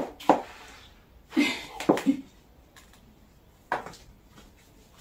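High-heeled sandals stepping on a tiled floor: a handful of sharp, irregular clicks, the loudest two at the start, then sparser ones with one last tap near the end.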